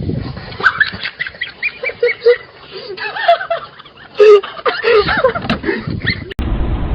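Waterfowl calling, a rapid run of short honking calls one after another. About six seconds in it cuts off abruptly to a steady low rumble.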